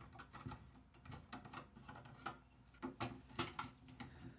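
Faint, irregular light clicks and taps of small metal hardware and PC parts being handled, a few sharper ones past the middle.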